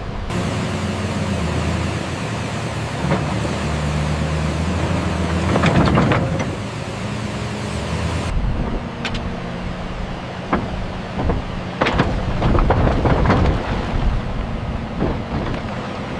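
Excavator's diesel engine running steadily, with scattered sharp clanks and knocks while it works. The sound changes abruptly about eight seconds in.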